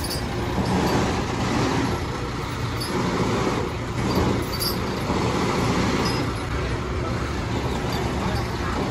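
Large truck engine running steadily, a continuous low hum, with street noise around it.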